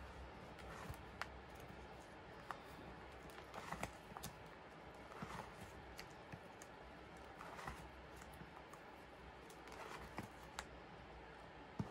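Faint turning of plastic binder pocket pages holding sleeved photocards: a soft swish of plastic every two to three seconds, with light clicks and taps of the pages and cards in between.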